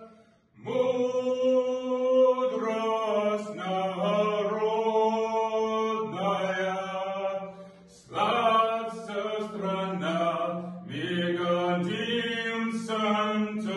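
A man singing solo in long held notes that step up and down in pitch, breaking off for breath about half a second in and again about eight seconds in.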